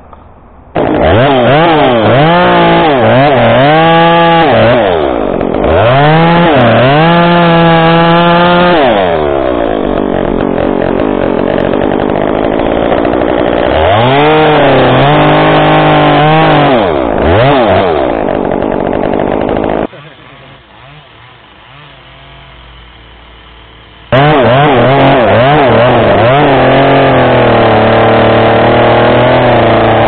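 Chainsaw running and cutting in a cherry tree, engine speed rising and dipping again and again as it races and takes load. It drops away abruptly about two-thirds through, then comes back at high revs for the last few seconds.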